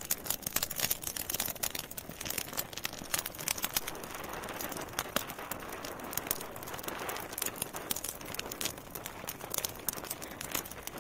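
Bonfire crackling: dense, irregular pops and snaps over a steady hiss.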